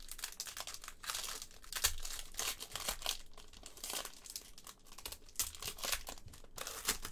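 Wrapper of a trading-card pack crinkling and tearing as it is opened by hand, a run of irregular crackles.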